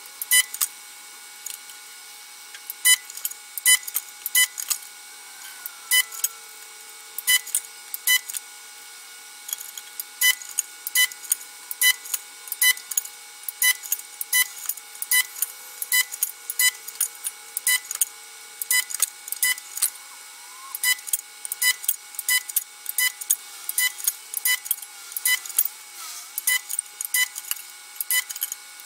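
Homemade spot welder, built from a microwave-oven transformer, making one spot weld after another on stainless-steel sheet. Each weld gives sharp clicks, often in pairs, about one to two a second with a few short pauses, over a faint steady hum.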